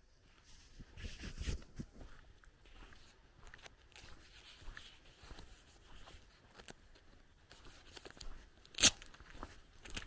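Footsteps crunching on a dirt and gravel path, with a burst of rustling about a second in and one sharp, loud click near the end.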